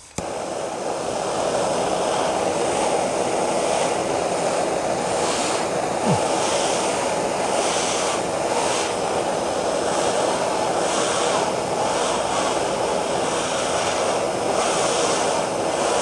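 Handheld gas torch flame comes on suddenly, then burns with a steady hiss, heating pruning scissors to sterilize them.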